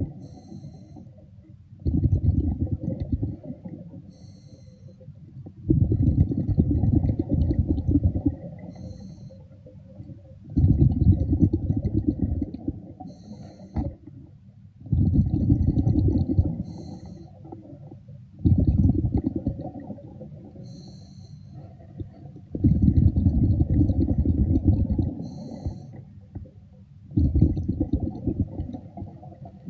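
A diver breathing underwater through a regulator: each exhale lets out a 2–3 second rumble of bubbles, and each short inhale between them hisses through the valve, in a steady cycle of about seven breaths.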